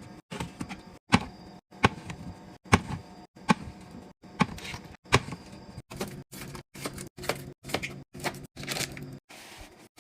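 Containers and packaged items clacking and tapping as they are handled and set down, heard as a quick run of short sharp knocks broken by abrupt cuts.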